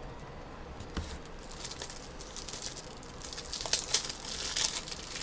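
Plastic packaging crinkling and rustling as it is handled, getting louder about three seconds in, with a single knock about a second in.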